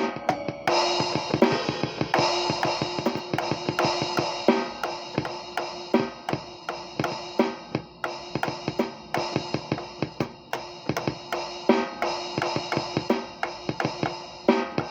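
Drum kit played in a steady, busy groove: fast cymbal strokes over bass drum, with a ringing snare or tom hit about every one and a half seconds. A cymbal crash comes in under a second in and its wash carries on under the beat.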